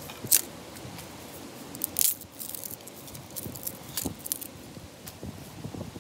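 Dry twigs and sticks being piled onto a rock: scattered sharp cracks and clatters of brittle wood. The loudest comes about a third of a second in, with another cluster near two seconds and more around four seconds.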